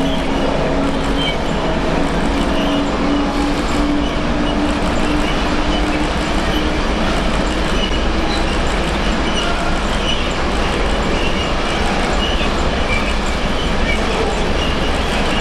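A train running past, with a loud, steady rolling noise. Over it a whine rises slowly in pitch through the first half and then fades out.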